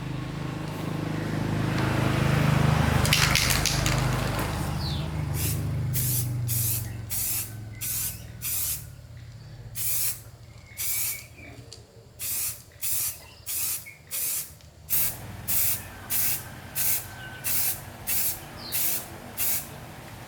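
A steady motor hum swells over the first few seconds, then gives way to short hissing bursts of pressurised spray, about twenty of them, coming faster toward the end.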